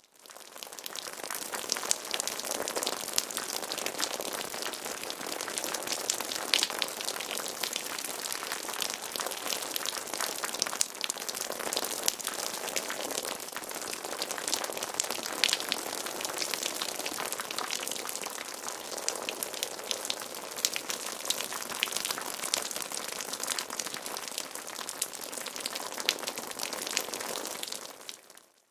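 Water sound effect: a steady pattering of water with many small drop-like ticks and splashes. It fades in at the start and fades out at the end.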